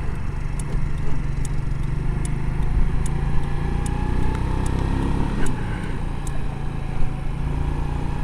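Yamaha Riva 125 scooter's four-stroke single-cylinder engine running under way, easing off about five seconds in and then picking up again. A faint whine rises slowly, and a light tick repeats about every 0.8 seconds.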